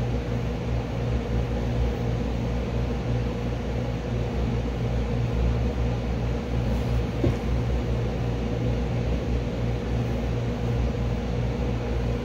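A steady low rumble and hum, like a motor or fan running, with a faint steady tone above it.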